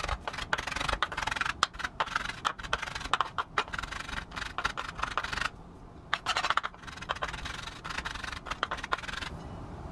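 Chef's knife chopping a pile of parsley on a wooden cutting board: a quick run of blade knocks on the board, a short break a little past halfway, then another run that stops shortly before the end.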